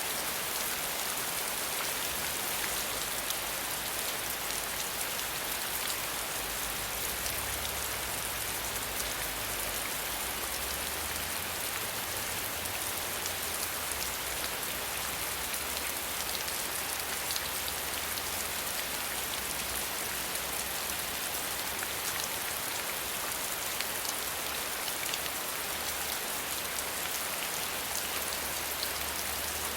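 Steady rain falling, a dense even hiss of many drops with fine ticks of individual drops hitting a surface.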